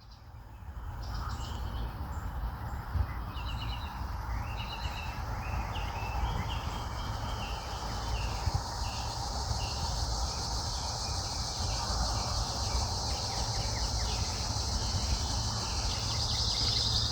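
Outdoor ambience: birds chirping over a steady high insect drone, with a low rumble underneath. It fades in at the start.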